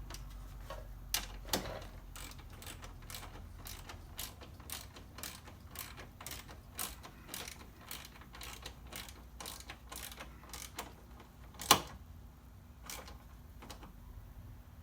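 Socket ratchet clicking in a string of irregular ticks as fasteners are tightened in a car door, with one louder knock about twelve seconds in.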